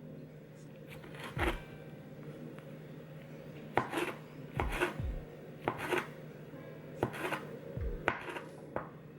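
Kitchen knife slicing vegetables: about a dozen separate strokes at an irregular pace, some in quick pairs, over a low steady hum.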